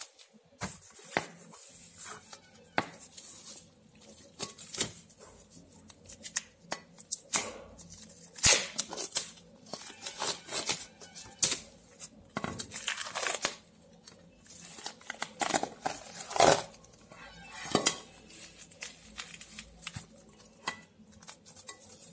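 Plastic shrink wrap crinkling and tearing as it is peeled off a stack of opalware dinner plates, in irregular sharp crackles, loudest about eight and a half and sixteen and a half seconds in.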